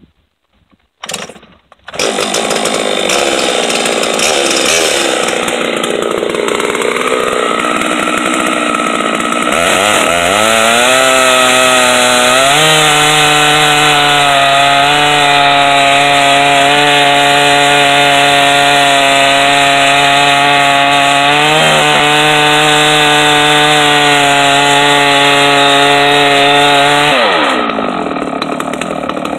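Two-stroke chainsaw on a chainsaw mill ripping a poplar log lengthwise into boards. It starts up about two seconds in and runs, then revs up about ten seconds in to a steady high pitch under load as it cuts. Near the end it drops back.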